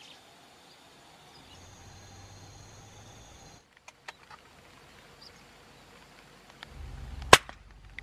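A single PCP air rifle shot about seven seconds in: one sharp, short report, after several seconds of quiet outdoor background.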